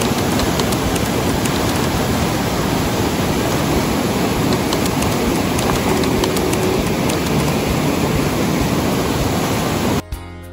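Whitewater rapids of a waterfall rushing over rock: a loud, steady rush of water that cuts off suddenly near the end.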